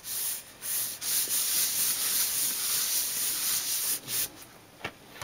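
Hands rubbing and smoothing a glued cardstock panel down onto a card base: a steady papery rubbing that dies away about four seconds in.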